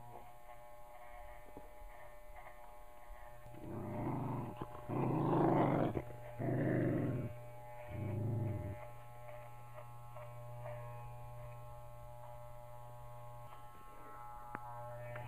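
A small dog growls four times in a row, starting about four seconds in, over the steady hum of electric dog clippers; the dog is protesting being shaved.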